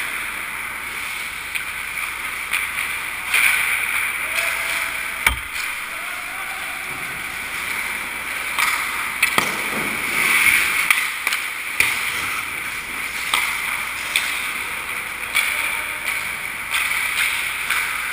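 Ice hockey skates scraping and carving on rink ice, a hissing scrape that swells and fades as players move, with sharp clacks of sticks and puck and a hard knock about five seconds in.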